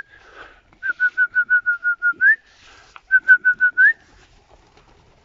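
A pigeon keeper whistling two quick runs of short, even notes, about seven a second, each run ending in a rising note, calling his young pigeons down to the loft.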